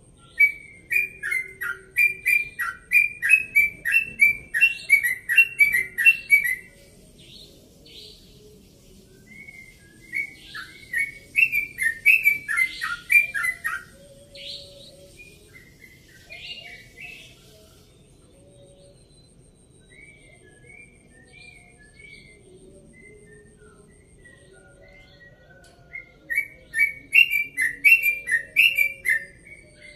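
Caged sooty-headed bulbul (trucukan) singing its rapid rolling 'ropel' song: three loud bouts of quick repeated notes, the first about six seconds long, another starting about ten seconds in, and a third near the end, with softer scattered notes between them.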